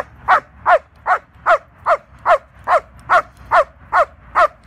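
Young female German Shepherd barking at a decoy in protection training: a steady run of about twelve barks, two or three a second, each dropping in pitch.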